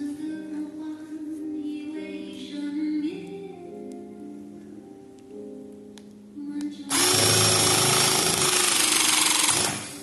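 Zupper PZ-400C battery-powered cable cutting tool running its motor for about three seconds, about seven seconds in, driving the cutting blade closed in empty jaws; a loud, even whirring with a steady hum that stops sharply. Background music plays before and under it.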